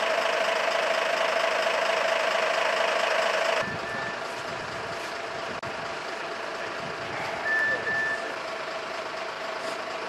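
Fire engine running at standstill: a steady drone with a held tone and hiss that cuts off abruptly a few seconds in. A quieter steady background follows, with a short high beep soon after and another a few seconds later.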